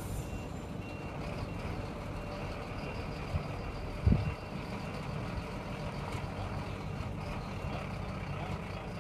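Diesel engines of a dump truck and a backhoe loader running steadily, with a reversing alarm beeping over them. A single heavy thump about four seconds in is the loudest sound.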